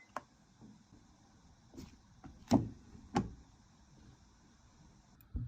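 A handful of sharp clicks and taps of small hard objects being handled, five in all, the loudest about two and a half seconds in, over a faint steady hiss that stops near the end.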